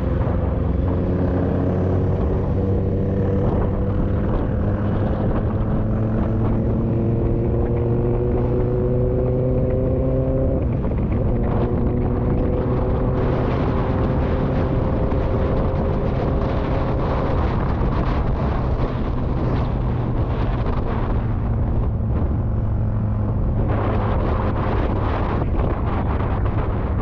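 Motorcycle engine running under throttle while riding, its pitch climbing slowly for about ten seconds, dropping sharply at a gear change, then climbing again and holding steady. Wind rushes on the microphone, heavier over the last few seconds.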